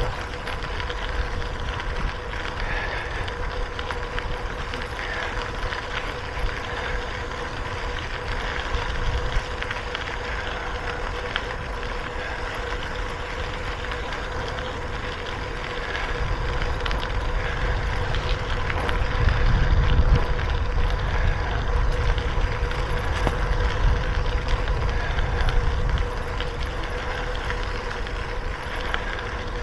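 Wind buffeting the microphone of a bicycle-mounted camera, with the bicycle's road noise, while riding along a road. The wind rumble swells for about ten seconds midway, over a faint steady hum.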